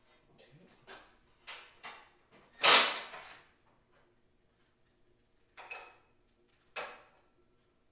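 Hand-tool and metal-parts handling on a mini bike: a run of short knocks and scrapes, the loudest a sudden clatter about three seconds in, then two more short knocks near the end.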